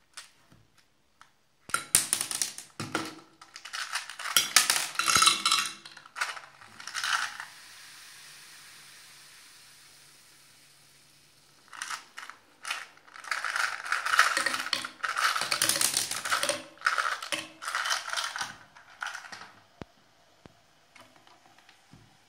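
Tic Tac mints rattling in their small plastic box as it is shaken, with light clicks of mints tipping out onto the metal top of a drink can. The rattling comes in two bouts, a few seconds each, with a pause between.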